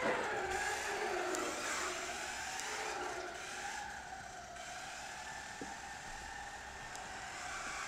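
Losi Strike 1/10 short course RC truck's brushed 550-size electric motor and drivetrain whining as it is driven, the pitch rising and falling with the throttle.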